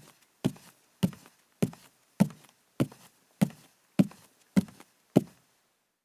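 Barefoot footsteps of a woman walking on a wooden floor, a soft heel-and-toe thud at an even pace of just under two steps a second, nine steps that stop a little over five seconds in.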